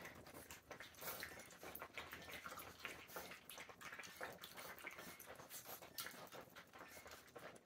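Faint, irregular wet lapping and licking from a litter of Rhodesian Ridgeback puppies drinking bone broth from a steel bowl, with small clicks as tongues and muzzles touch the metal.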